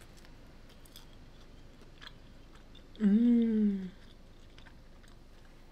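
Faint crunchy chewing of crispy oven-baked smelt, with small scattered crackles. About three seconds in comes a short hummed 'mmm' of approval, under a second long, rising then falling in pitch.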